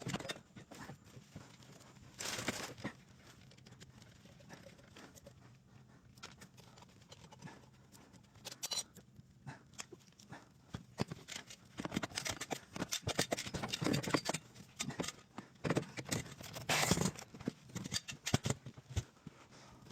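Irregular clicks, scrapes and rustling of hands and tools at work, busier in the second half, with short bursts of hissing noise about two seconds in and again near the end.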